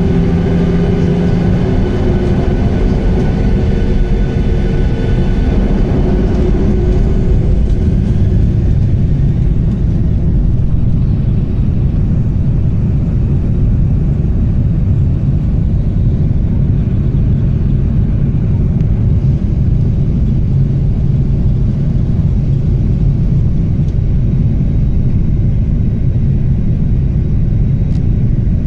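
Boeing 737-800's CFM56-7B jet engines at takeoff power, a loud steady rumble. Whining fan tones over the rumble fade out after the first several seconds.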